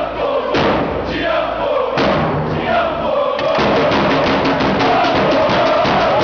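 Samba-style supporters' drum section, large surdo bass drums struck with mallets along with snare-type drums, playing a driving rhythm while a crowd chants along. The drumming gets denser about three seconds in.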